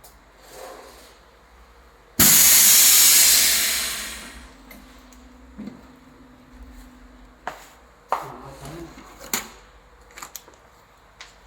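Vacuum sealer releasing its vacuum: a sudden loud hiss of air rushing back in, starting about two seconds in and fading over a couple of seconds as the pressure evens out. Afterwards, a faint hum and scattered clicks and knocks from the machine being handled.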